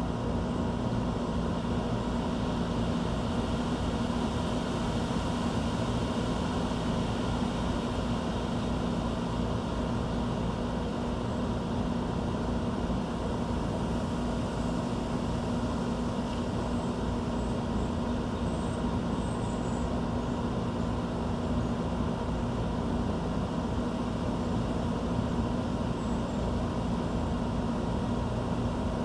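Steady mechanical hum with an even rushing noise underneath. A few faint, high bird chirps come about two-thirds of the way through.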